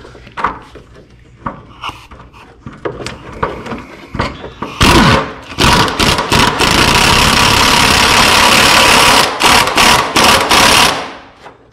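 Metal clicks and knocks as a tool is set on a rusted radiator core support bolt. From about five seconds in a power wrench runs loud, first in short bursts, then in one long run and a few more bursts before it stops. The bolt only spins because its top can't be held, so it will not come undone.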